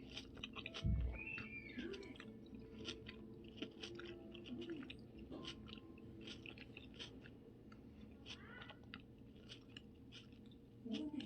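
Close-miked ASMR chewing and mouth sounds: a steady run of short, wet clicks and smacks, with a low thump about a second in.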